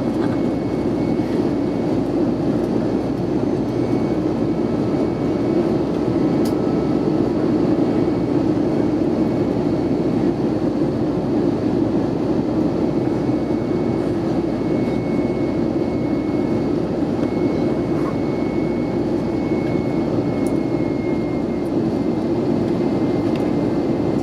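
Steady cabin roar inside an Airbus A320 in flight: the engines and airflow make an even, deep rushing noise, with a faint thin steady whine above it.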